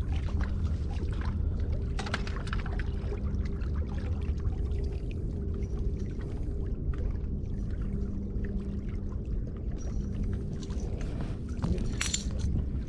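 Lakeshore ambience: water lapping against the rocky bank over a steady low rumble, with a faint steady hum and scattered small ticks. A sharp crackle comes near the end.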